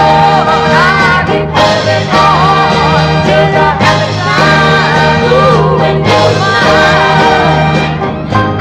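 Live pop performance with female singing over a band accompaniment with a steady bass line.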